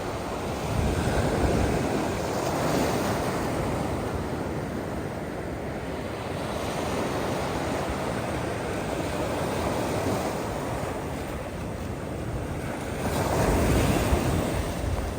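Ocean surf breaking and washing up the beach in a steady roar of noise, with swells of louder surf about a second in and again near the end.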